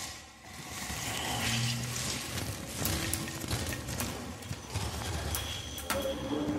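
Sparse, quiet drum percussion: scattered light taps and knocks, with a few short low tones in between.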